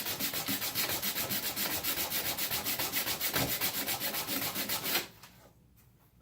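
Rough sandpaper rubbing back and forth over the underside of a harmonica mouthpiece slider in quick, even hand strokes. It stops about five seconds in. The rough grit is still cutting only the side edges and smoothing them, not yet the part that meets the mouthpiece top.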